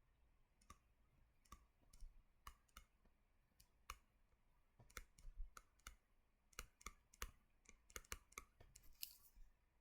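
Faint, irregular clicks over near silence, sparse at first and coming closer together from about halfway through.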